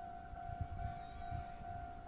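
Japanese railway level crossing warning bell ringing: an electronic ding repeated evenly, a little over two rings a second, warning of an approaching train.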